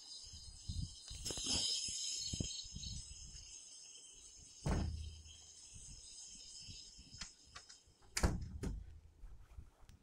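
Crickets chirring steadily at night, loudest in the first few seconds. Low rumbling runs underneath, with dull thumps about five seconds in and again near the eighth second.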